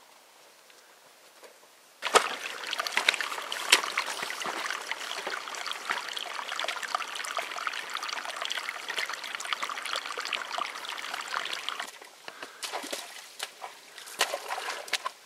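Water trickling and splashing over the wet stones of a rocky trail, starting suddenly about two seconds in. Near the end, hiking boots squelch and slosh through mud and puddles in uneven steps.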